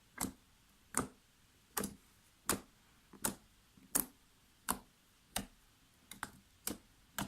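Homemade slime being worked by hand, giving sharp clicking pops at a steady pace of about one every three-quarters of a second, with a couple coming closer together near the end.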